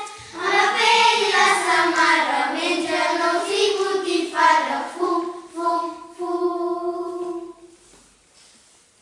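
Child's voice singing a melody, stopping about three-quarters of the way through.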